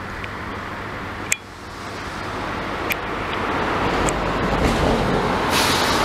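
Traffic on a busy road: a vehicle's tyre and engine noise builds up and passes close, loudest near the end, with a single sharp click about a second in.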